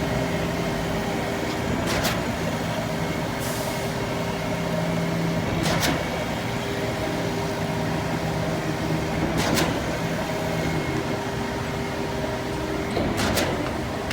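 Concrete pump truck running steadily during a pour, its engine holding a constant drone, with a sharp knock every three to four seconds as the pump changes stroke. A short hiss sounds once, a few seconds in.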